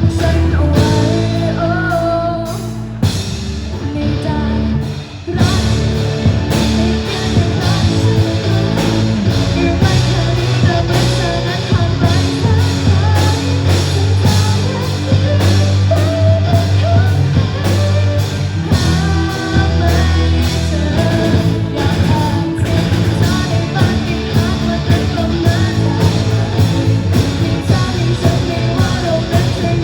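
A pop-rock song with singing over instruments and a steady beat. It thins out briefly about three seconds in, then comes back in full.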